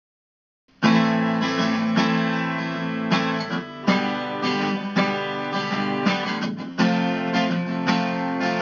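Acoustic guitar playing the song's instrumental intro in ringing chords, coming in with a hard strum about a second in and struck again every second or two.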